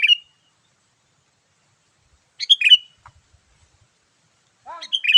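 Sooty-headed bulbul (kutilang) song: three short, bright whistled phrases, one at the start, one about two and a half seconds in and one near the end, the lively 'gacor' call used to lure wild bulbuls.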